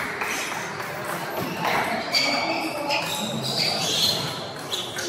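Table tennis ball knocking a few scattered times off paddles and table, with voices in the background.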